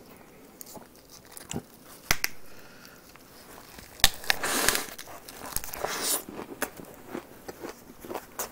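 Close-miked eating of a leaf-wrapped bite of cold sliced pork trotter with shredded vegetables: wet chewing and crunching with a few sharp clicks, the loudest about four seconds in as the bite goes into the mouth.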